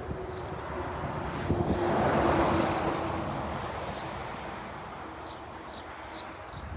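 A passing vehicle with a steady hum: its noise swells to a peak about two seconds in, then fades away. Birds chirp in short high calls over it.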